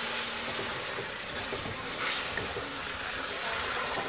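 Dark sugar syrup of melted coconut jam and sugar, just thinned with a little water, sizzling steadily in a hot wok while a wooden spatula stirs it, with a few light scrapes near the end.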